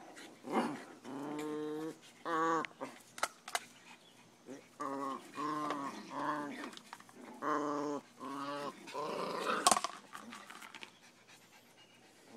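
Two dogs play-fighting, a Bugg puppy and a Boston terrier, with a string of short, wavering growls one after another, some sharp clicks, and a loud sharp click a little before ten seconds in.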